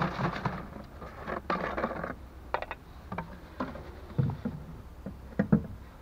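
Water sloshing in a plastic antifreeze jug as it is shaken to rinse out leftover coolant, twice, then a series of light hollow knocks from the jug being handled. The loudest knock comes near the end.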